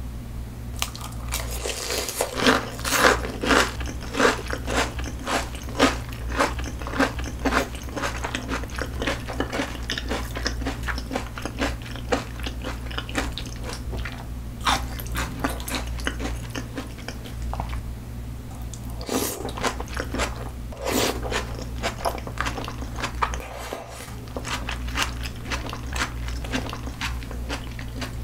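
Close-miked biting and chewing of a fried oyster's crisp batter: rapid crunches, loudest in the first several seconds, then quieter chewing broken by a few short louder crunches.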